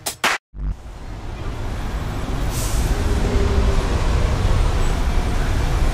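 Steady road-traffic noise with a low engine rumble, building up after a brief gap near the start, with a short hiss about two and a half seconds in.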